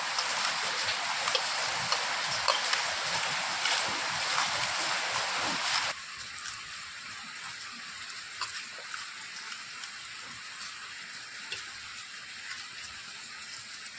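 Wet squelching and squishing of raw chicken pieces being turned by hand in a spice marinade in a steel bowl, with many small wet clicks over a steady hiss. About six seconds in, the sound drops abruptly to a quieter stretch of the same hand-mixing with scattered light squishes.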